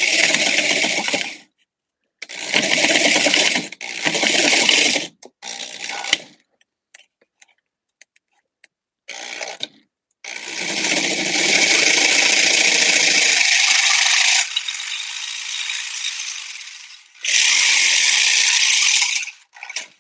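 Electric saber saw cutting in several short stop-start bursts, then one long cut of about nine seconds that goes quieter for a few seconds in the middle and loud again near the end.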